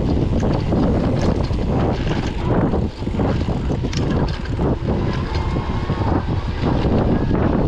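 Riding noise of an electric mountain bike on a dry dirt trail at speed: heavy wind rumble on the action-camera microphone over tyre noise and many small knocks and rattles from the bike over rough ground. A faint thin whine sounds briefly a little past halfway.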